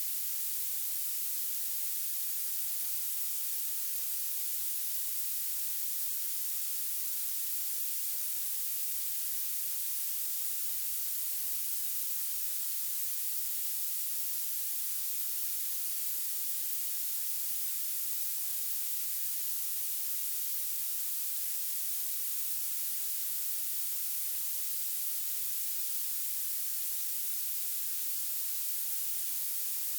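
Violet noise: a steady, high-pitched hiss with its strength climbing toward the highest frequencies and almost no low end.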